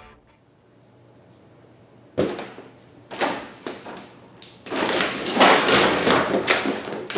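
Knocks and bangs echoing inside an empty semi-trailer box: two sharp knocks, then a large black panel toppling over and flopping onto the trailer floor, followed by a stretch of clattering and footsteps on the floor.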